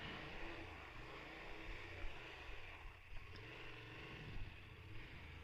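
Motorcycle engine idling steadily, a low even hum, with light wind noise over it.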